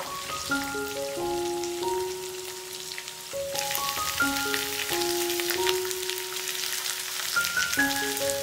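Oil sizzling as onions, garlic cloves and dried red chillies fry in a nonstick pan, with a wooden spatula stirring and clicking against the pan. The sizzle grows louder about three and a half seconds in. Gentle background music of slow, held melodic notes plays over it.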